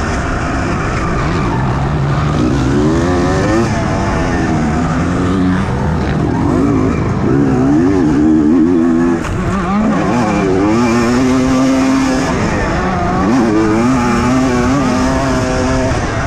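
Motocross bike engine heard close up from on the bike, revving up and dropping back over and over as the rider accelerates and shifts round the track.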